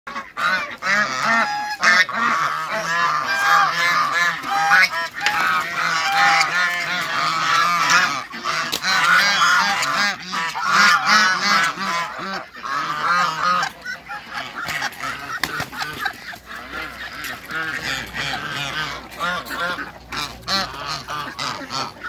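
A flock of domestic geese honking, many calls overlapping at once. The calling is densest and loudest over the first dozen or so seconds and thins out after that.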